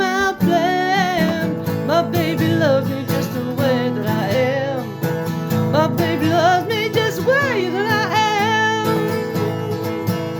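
Country band music: guitars and a steady backing, with a lead melody line wavering in vibrato over it.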